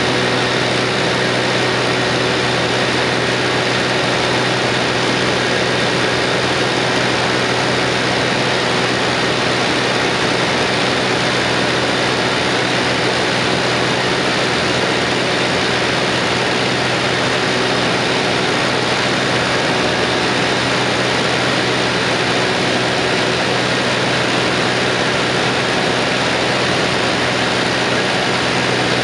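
Cabin noise of a small propeller aircraft in level flight: a loud, unchanging engine-and-propeller drone, an even hum under a dense rushing noise.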